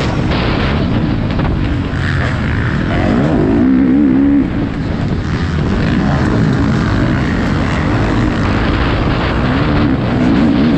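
Motocross bike engine racing at high revs, heard from on board the bike. The pitch rises and falls with the throttle. It eases off briefly about four and a half seconds in, then pulls hard again.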